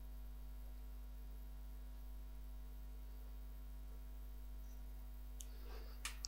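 Steady low electrical hum, like mains hum, with a few faint clicks and some rustling near the end.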